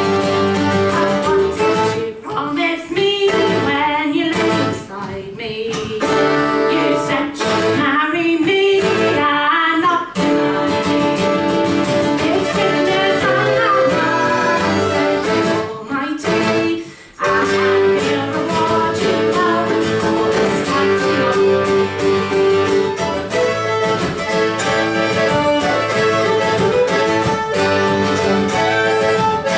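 Live folk band: a woman singing a traditional English folk song to acoustic guitar, fiddle and melodeon. The music drops out briefly about halfway through, then the instruments play on without the voice.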